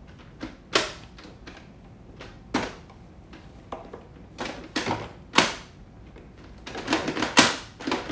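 Hard plastic toy car being handled and picked at with fingers: irregular sharp clicks and knocks, a few spaced out at first, coming faster near the end.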